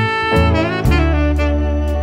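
Background instrumental music: a melody of held notes moving over a low bass line.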